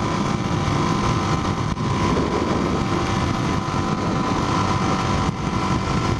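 Motorcycle engine running steadily while riding, mixed with a constant rush of wind and road noise.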